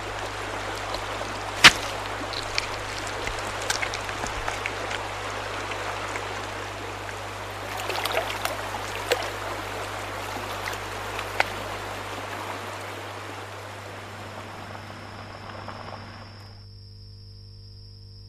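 Shallow creek running over rocks, with a few sharp drip-like taps, the loudest about two seconds in. A steady low hum lies underneath. The water sound cuts off suddenly near the end, leaving only the faint hum.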